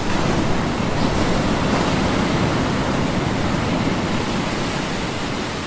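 Steady rush of surf or breaking water, a continuous noise with no distinct splashes, easing off near the end.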